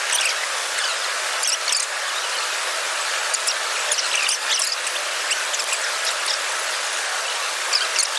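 Steady rushing and splashing of an indoor waterfall, with short high chirps and ticks scattered over it.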